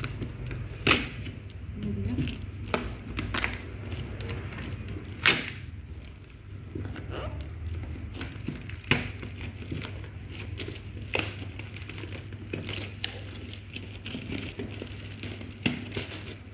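Plastic mailer bag being torn open and handled: irregular crinkling and crackling with a few sharp snaps, as a parcel is unpacked by hand.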